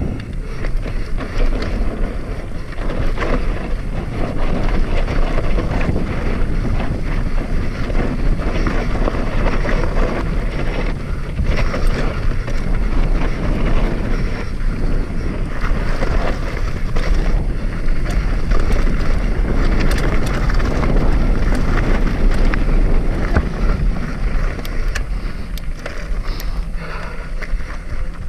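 Wind buffeting the microphone over the rattle of a hardtail mountain bike riding down a rocky trail, a steady loud rumble with many small knocks and clatters as the wheels hit rocks.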